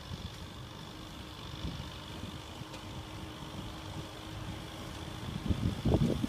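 Tractor engine running steadily under load as it tills a field, a faint even hum over a low rumble. A louder gust of wind on the microphone comes near the end.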